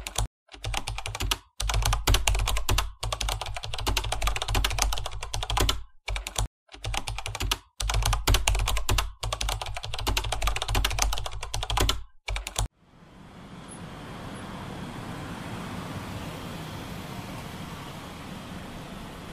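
Fast typing on a laptop keyboard by fingers with long acrylic nails, keys clattering in quick runs broken by brief silent gaps. About two-thirds of the way through, it gives way to a steady rushing noise.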